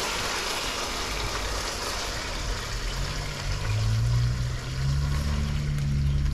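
Hot sweet and sour sauce sizzling and trickling as it is poured over fish. A low steady hum comes in about halfway through.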